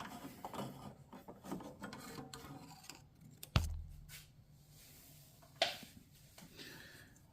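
Hand work on a ride-on mower's drive pulley: small scraping and rubbing of metal as the circlip is pried out and the cooling fan worked off the shaft. There is a sharp click with a brief dull thud about halfway through, and another sharp click later.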